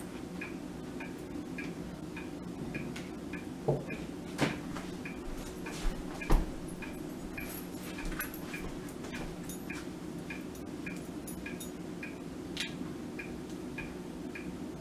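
A clock ticking steadily, about two ticks a second, over a low steady hum, with a few light knocks about four and six seconds in.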